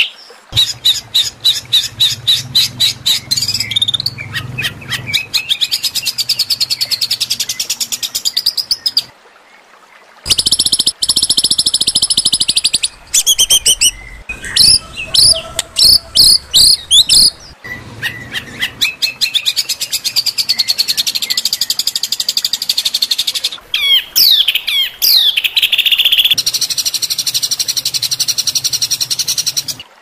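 Songbird tutor recording of harsh, rough calls: fast rattling trills and chattering runs of high-pitched notes, with a short pause about nine seconds in and a few quick downward-sliding whistles later on.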